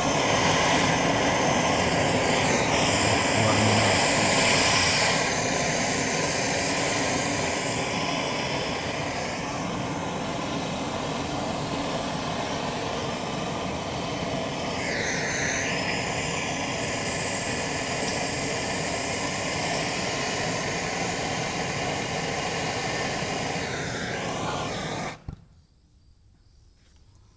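Handheld gas plumbing torch burning with a steady hiss as it heats a copper elbow fitting for soldering. The flame is shut off about 25 seconds in.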